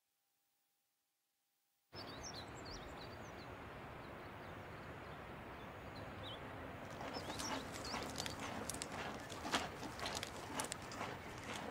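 Silence for about two seconds, then an open-country ambience: a steady wind-like hiss with scattered bird chirps. From about seven seconds in, a run of irregular clicks and taps joins and grows louder.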